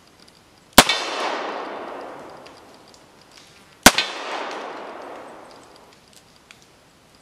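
Two handgun shots about three seconds apart, each a sharp crack followed by a long echo that dies away over about two seconds.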